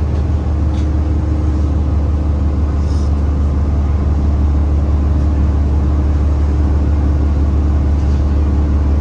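Cummins ISL9 diesel engine of a New Flyer Xcelsior XDE60 hybrid articulated bus idling while the bus stands still, heard from inside the cabin: a steady, even low drone with a few faint higher tones over it.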